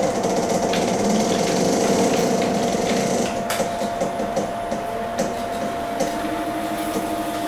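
Stepper motors and gearboxes of a Sixi robot arm whining and clicking as the arm is driven, with a steady high whine and rapid ticking. A lower tone joins about six seconds in as another joint moves.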